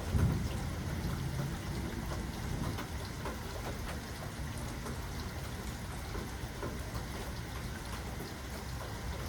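Steady rain falling, an even hiss of drops, with a brief low rumble of thunder in the first second or so.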